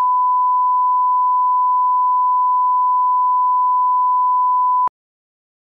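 Broadcast line-up test tone played with SMPTE colour bars: one steady pure pitch that cuts off suddenly about five seconds in.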